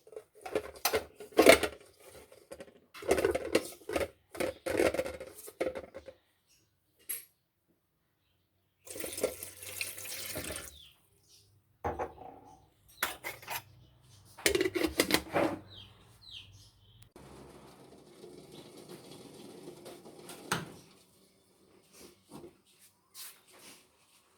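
Kitchen sounds of a pot and utensils clattering in bursts, with a stretch of water running from a tap in the middle and a quieter steady hiss of water later on.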